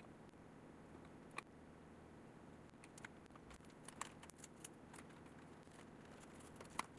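Near silence: faint room tone with a few light, scattered clicks from fingers handling thin wood veneer and blue painter's tape.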